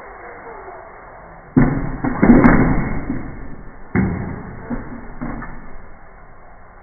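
A metal humanoid fighting robot crashing down onto a tabletop, heard slowed down. A sudden heavy crash about a second and a half in runs into a rattling clatter of its metal frame. A second sharp thud comes near four seconds in, then a few smaller knocks as it settles.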